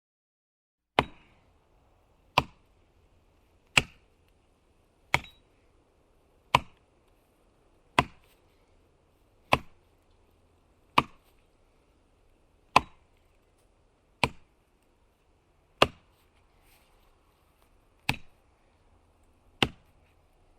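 Computer mouse button clicking: thirteen single, sharp clicks, one roughly every one and a half seconds.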